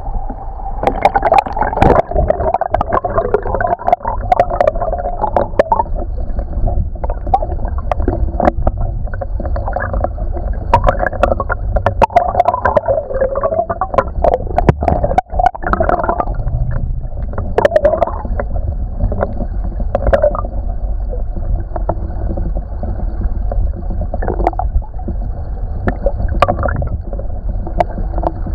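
Shallow creek water flowing and gurgling, heard by a camera submerged in the stream: a muffled, steady churn with many sharp clicks and knocks scattered through it.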